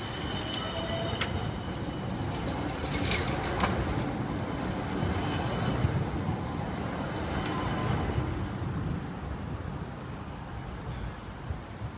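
Low-floor electric tram passing close by at low speed: a steady low rumble of wheels on rail with faint high tones and a few light clicks. The rumble eases off near the end as the tram moves away.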